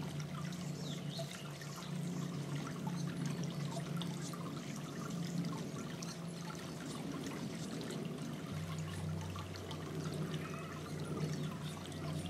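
Water trickling and splashing in a small garden bird fountain while a Townsend's Warbler bathes in it, flicking spray with its wings. A steady low hum runs beneath and grows stronger about two-thirds of the way in.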